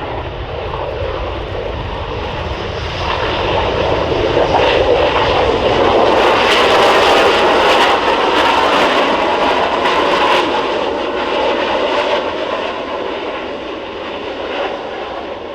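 Panavia Tornado IDS's twin RB199 turbofan engines running as the jet rolls out after landing, the sound swelling to its loudest about halfway through and then fading away.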